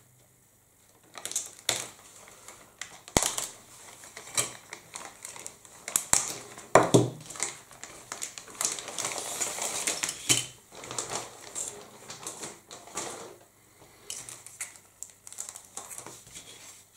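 Polythene kit bag crinkling and rustling as a grey plastic model sprue is worked out of it, with many small sharp clicks of the plastic frame, busiest in the middle.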